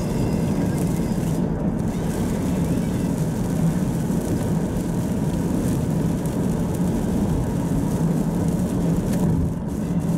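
Steady low rumble inside a moving car's cabin: tyres on a rain-soaked expressway and the engine at cruising speed.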